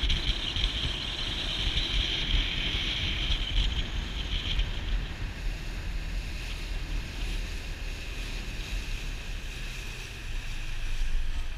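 Small motorboat under way at slow speed: a steady low engine drone, with wind buffeting the microphone and water rushing along the hull.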